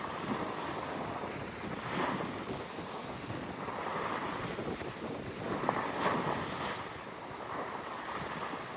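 Sea waves washing and splashing in a steady rush that swells every second or two, with wind buffeting the microphone.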